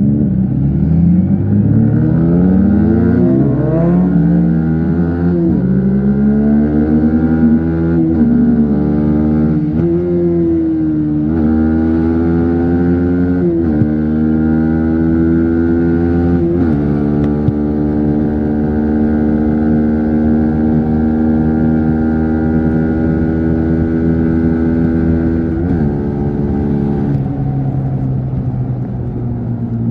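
Yamaha MT-15 V3's 155 cc single-cylinder engine accelerating hard through the gears, its pitch rising and dropping back at each of about seven upshifts in the first half. It then holds a steady cruise, easing off briefly near the end.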